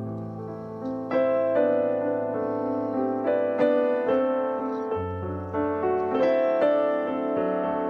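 Background piano music: notes and chords struck in a steady, gentle flow, each ringing and fading.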